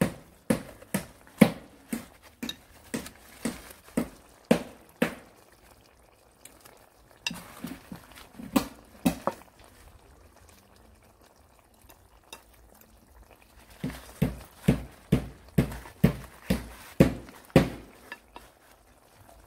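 A metal fork clinking and tapping against the side of a pot of fish in curry gravy while basting. The taps come in quick runs of about two a second, with a quieter stretch in the middle.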